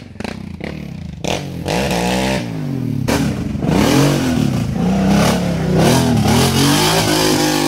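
ATV engine revving hard under load, its pitch rising and falling again and again as it climbs a steep rutted slope, with a few knocks in the first second.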